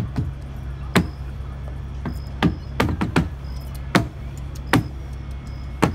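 Percussive strikes from a flamenco dancer on a wooden pier deck: sharp knocks, about eight, spaced irregularly with a quick cluster near the middle, over a steady low hum.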